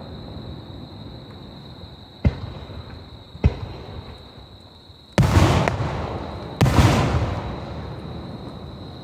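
Aerial fireworks: two short sharp cracks a little over a second apart, then two much louder bursts about a second and a half apart, each rumbling away over about a second.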